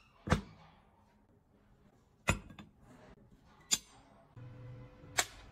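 Pieces of steel tube and angle iron being set down and knocked against each other on a wooden workbench: four sharp metallic clanks, each ringing briefly, spaced about one and a half to two seconds apart.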